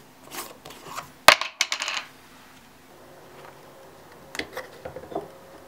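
A plastic jar lid drops onto a wooden tabletop about a second in and rattles briefly as it settles, like a dropped coin spinning down. Near the end, a few sharp clicks as the plastic flip-top cap of a squeeze bottle of jelly is snapped open.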